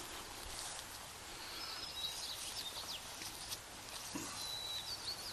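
Small birds chirping in short, high-pitched calls, a few at a time, over steady outdoor background noise, with one soft thump about four seconds in.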